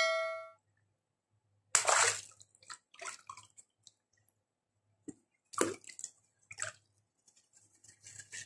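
Water sloshing and dripping with wet squishes as water-filled rubber balloons are lifted, squeezed and dropped back into a tub of water, in a series of separate splashes. A short ringing tone fades out in the first half-second.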